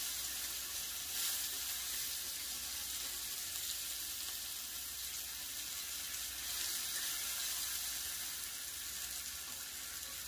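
Thin slices of beef brisket and enoki mushrooms sizzling steadily on a hot grill pan as they fry.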